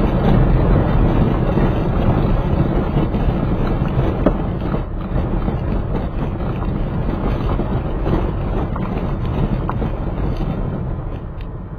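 Road and wind noise from a moving vehicle: a steady low rumble with wind buffeting the microphone, easing a little near the end.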